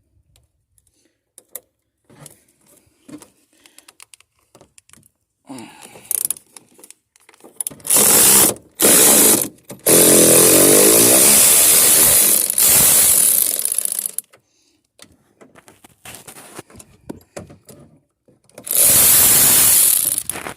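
Power tool running in bursts to back out a car door's hinge bolts: two short runs, then a longer run of about four seconds, then a final run of about two seconds near the end, with light clicks of handling before.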